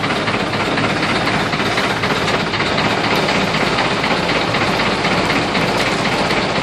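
A boat engine running steadily, with an even rush of churned water.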